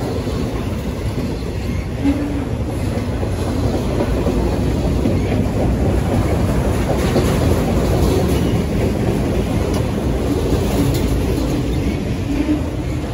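Multilevel autorack freight cars rolling past close by: a steady rumble of steel wheels on rail with occasional clacks as the trucks pass over rail joints.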